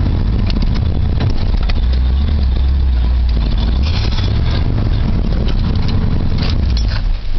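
1983 Ford F-350 pickup's engine running through its newly fitted exhaust as the truck drives, heard from inside the cab. The low exhaust note swells and eases a few times, with light rattles over it.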